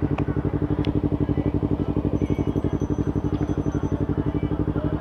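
Yamaha R3 parallel-twin with an Akrapovic slip-on muffler idling steadily, an even low pulsing exhaust note with no revving.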